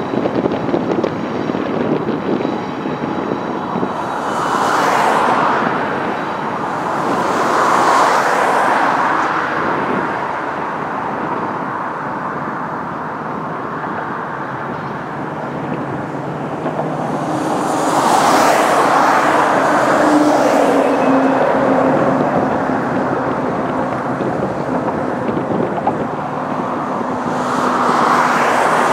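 Road traffic passing close by: vehicles swish past one at a time, about four times, each rush swelling and fading. Steady traffic noise and wind fill the gaps.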